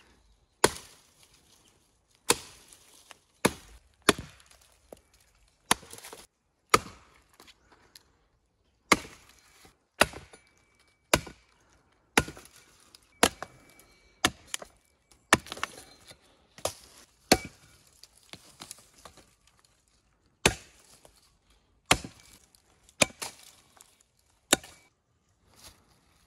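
Hatchet chopping a dead branch into lengths: about twenty sharp wooden chops at an uneven pace, roughly one a second, with smaller cracks between them.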